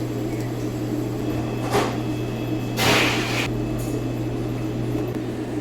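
A steady low hum, with two short bursts of rustling or scraping noise, a brief one just under two seconds in and a longer one about three seconds in.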